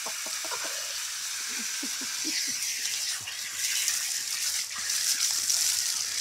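Water jetting from the open end of a garden hose and splashing onto wet pavement, a steady hiss.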